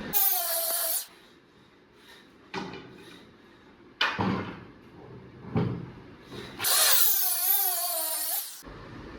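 Electric drill running in two bursts, a short one at the start and a longer one about two seconds long near the end, its whine wavering in pitch as it loads up. Between the two runs come three sharp knocks.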